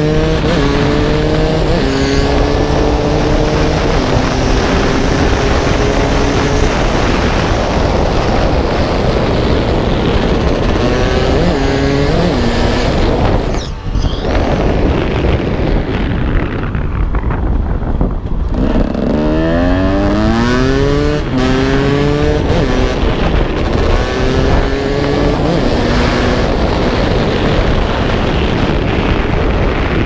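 KTM 200 EXC two-stroke enduro motorcycle engine being ridden hard through the gears, its pitch climbing and dropping at each shift. The throttle comes off briefly about 14 seconds in, then the engine revs quickly up through several gears again. Heavy wind rush from an open camera case partly covers the engine.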